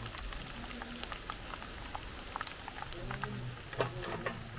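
Hot oil sizzling and crackling around chicken pieces deep-frying in a wok while a wire spider strainer lifts them out. Near the end the metal strainer clinks sharply against an aluminium bowl as the pieces are tipped in.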